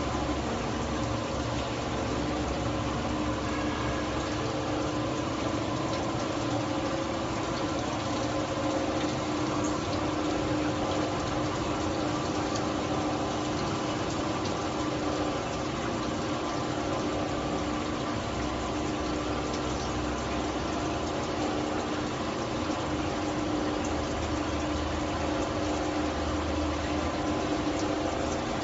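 Automatic bottle washing machine running: a steady machine hum with several held tones over an even hiss of rinsing spray, with a few faint ticks.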